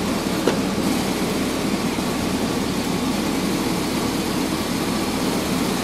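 2003 Chevrolet Silverado's engine idling steadily with the hood open, left running to warm up the transmission fluid and check the new transmission cooler lines for leaks.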